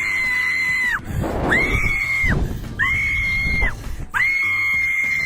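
A rider on a slingshot ride screaming four times. Each scream is long, high and held steady for about a second, with short breaks for breath between them.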